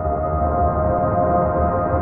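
Ambient music: held, ringing tones over a low rumble.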